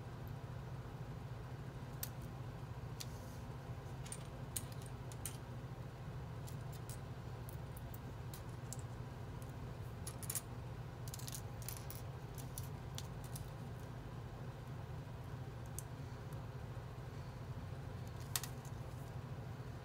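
Small plastic building bricks clicking and rattling as they are picked out and pressed together by hand, in scattered clicks that bunch together about halfway through, over a steady low hum.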